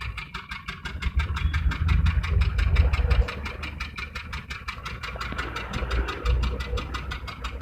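Exhaust of a Maruti Suzuki Wagon R K10's three-cylinder petrol engine at idle, a rapid pulsing beat that swells and sags in loudness. The engine is misfiring, with one cylinder dead from a cracked ignition coil.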